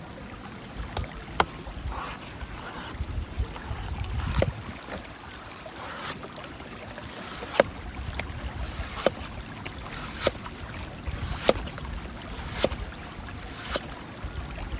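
A blade chopping into a green coconut: a dozen or so sharp strikes, roughly one a second, over a low wind-like rumble.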